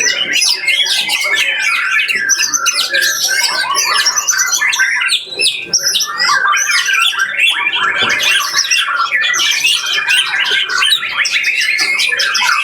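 Several caged songbirds singing at once in competition: a loud, unbroken mass of rapid chirps, trills and squawky calls overlapping one another.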